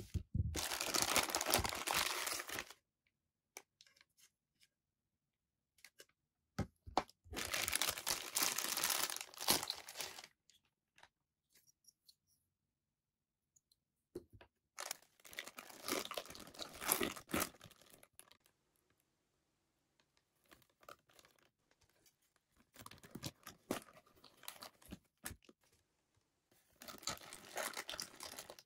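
Thin clear plastic packaging bags crinkling and rustling as figure parts are unwrapped, in several bursts of a few seconds each, with light clicks of small plastic parts handled between them.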